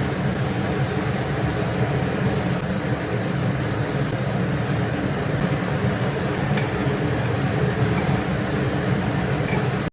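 A steady low rumble of a running machine, even throughout with no clear rhythm.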